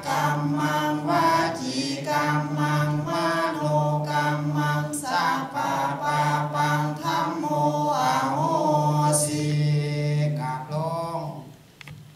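Theravada Buddhist monks chanting together on one steady low reciting tone, amplified through a microphone. The chant dips into a brief pause near the end.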